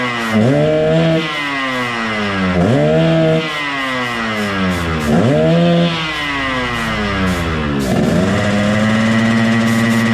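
Yamaha RX-King's two-stroke single-cylinder engine, tuned in the 'ngorok' style, is blipped four times. Each rev rises fast and sinks slowly back down. It then settles into a steady idle over the last couple of seconds.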